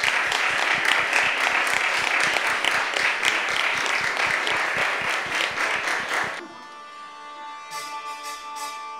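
Applause from a small audience, many hands clapping, which stops abruptly about six seconds in. Quieter music with held, sustained notes follows.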